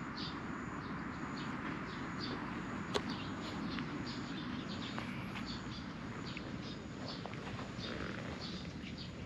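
Birds chirping in short, repeated calls over a steady low outdoor noise bed, with one sharp click about three seconds in.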